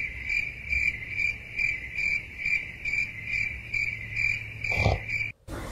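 Crickets chirping as a comedy sound effect for an awkward silence: a steady high trill pulsing about two or three times a second that cuts off suddenly near the end, with one brief low sound just before the cut.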